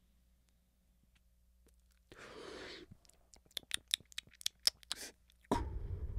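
A quiet draw on a disposable vape, a short breath about two seconds in, then a run of wet mouth clicks close to the microphone. About five and a half seconds in comes a long exhale of vapour blowing onto the microphone, the loudest sound here.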